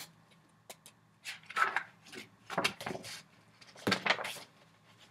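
Pages of a paper picture book being turned and handled: three short rustles about a second apart, the last with a soft thump.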